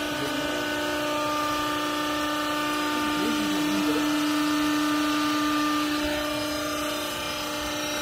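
Hydraulic power unit of a vertical used-clothing baler running with a steady hum, dipping slightly about six seconds in.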